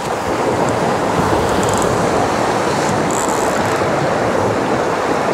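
Water rushing along the hull of a J70 sailboat sailing fast in strong wind, a steady loud rush of bow wave and spray mixed with wind.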